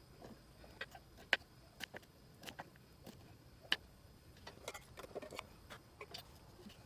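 A series of light, irregular clicks and taps, a few of them brighter and ringing briefly.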